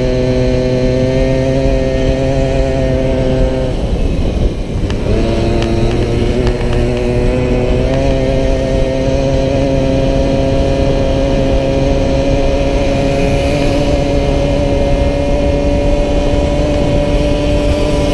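Racing Solex moped's small two-stroke engine held at high revs, with wind noise on the microphone. About four seconds in, the throttle is briefly shut and the engine note drops and breaks up. It then picks back up and runs steadily at full speed.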